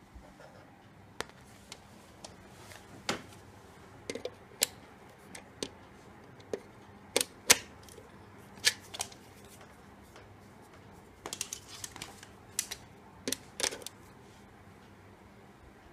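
Irregular light clicks and knocks from a black plastic plug adapter being handled and pushed into a wall socket. The loudest is a sharp pair of clicks about seven seconds in, with a cluster of smaller clicks near the end.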